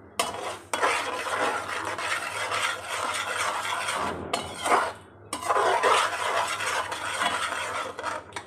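A spoon stirring and scraping a halwa mixture around a steel pan, in two long spells with a short break a little over four seconds in.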